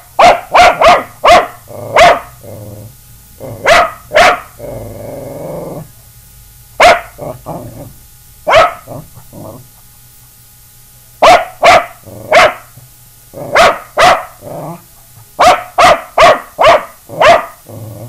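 A small dog barking at an air horn can in quick clusters of several sharp barks, with short gaps between the clusters. About four seconds in, a low rough growl lasts for about a second and a half.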